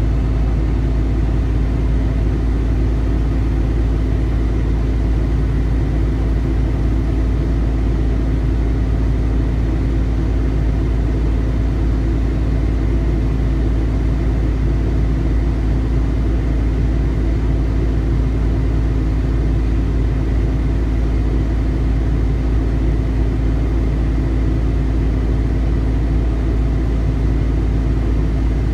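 2015 Kenworth T680's Paccar MX-13 inline-six diesel running steadily during a parked forced DPF regeneration: an even, low rumble with a steady hum.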